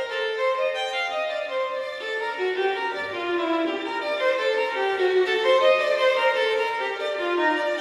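Instrumental background music: a melody of held notes stepping up and down in pitch.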